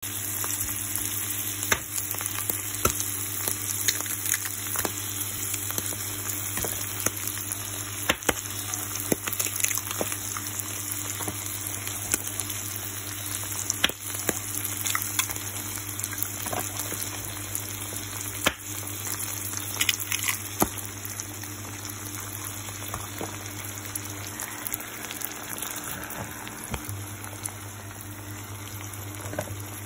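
Tuna, onion and tomato sizzling in oil in a non-stick frying pan as eggs are added to fry in it: a steady sizzle broken by sharp crackles and pops now and then.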